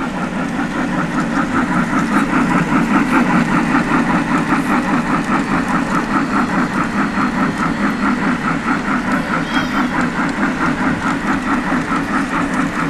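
O-gauge model Chesapeake & Ohio steam locomotive running on three-rail track, with a fast, steady rhythmic chuffing over a constant rumble of its wheels on the rails.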